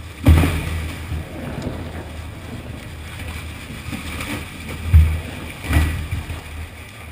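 Tunnel boring machine breaking through the weak concrete wall of the extraction shaft: a steady low rumble of the cutter head grinding, with loose concrete falling and thudding down three times, once just after the start and twice about five seconds in.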